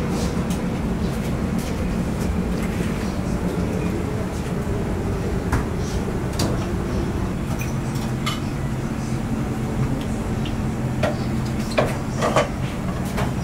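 Steady low hum of kitchen equipment, with scattered light clinks of a metal spoon and ladle against an aluminium saucepan as miso tare is worked in the pan. The loudest clinks come near the end.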